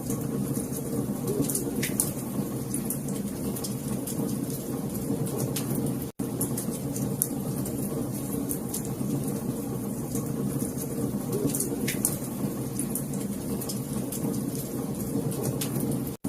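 Wood fire crackling: scattered sharp pops and snaps over a steady low rumble of burning. The sound drops out for an instant about six seconds in and again near the end.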